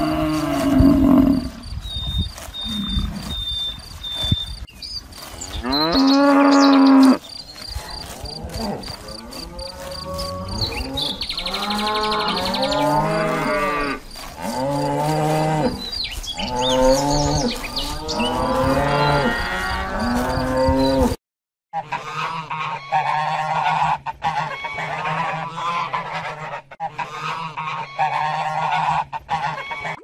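Cattle mooing: a low call at the start, one long rising moo about six seconds in, then a run of repeated moos about a second and a half apart. After a short break, a different recording with a steady low hum under higher honking calls.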